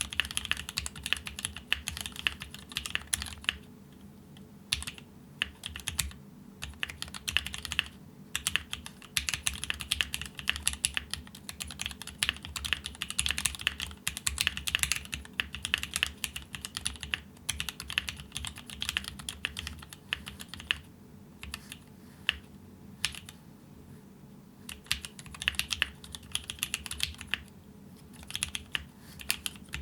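Typing on a gasket-mounted custom mechanical keyboard with stock Mekanisk Ultramarine switches on an aluminium plate: a rapid stream of key clicks in bursts, with several short pauses of a second or two.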